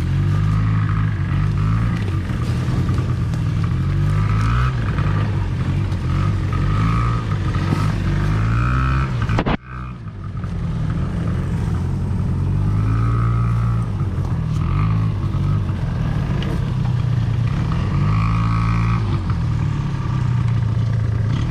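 ATV engine running under load, its revs rising and falling over and over as it pulls through mud. The sound cuts out abruptly for a moment about halfway through, then picks up again.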